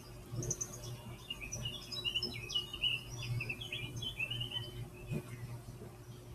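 Recorded birdsong from a YouTube bird video playing through computer speakers: a quick run of many high chirps and trills that dies away about five seconds in, over a steady low hum.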